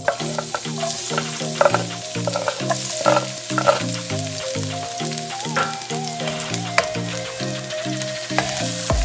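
Diced red onion and minced garlic dropping into hot oil in a nonstick wok and sizzling steadily, with a few sharp knocks and scrapes of the wooden board and spatula against the pan. A light music bed plays underneath.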